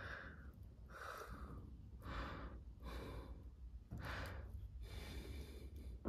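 Faint breathing close to the microphone: about six soft breaths in and out, evenly spaced roughly a second apart, while fingers work a wire into a small terminal.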